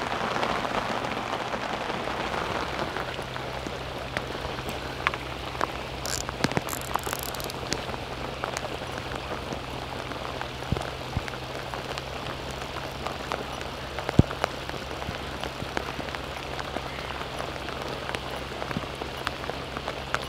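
Heavy rain falling steadily, with many individual drops ticking sharply close by.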